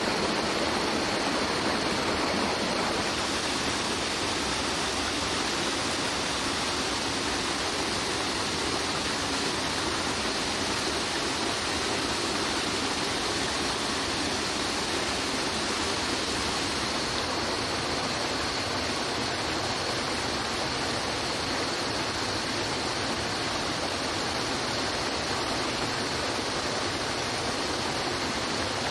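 Stream water rushing, a steady even rush that does not let up.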